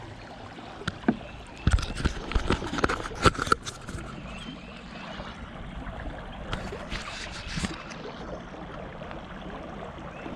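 A cluster of knocks and clatter on a kayak about two seconds in, a few more near the middle, over running river water.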